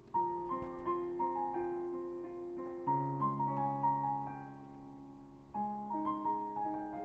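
Background piano music: a slow melody over held bass notes, with a new phrase starting about every three seconds.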